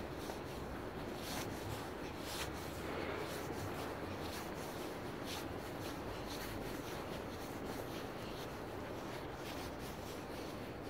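Walking noise from a hand-held phone: faint taps about once a second and rubbing against the microphone, over a steady outdoor hum.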